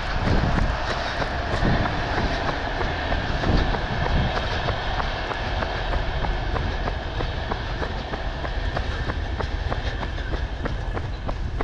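Running footsteps in a steady, even rhythm, picked up by a hand-held GoPro Hero 9, over a heavy low rumble of wind on its microphone.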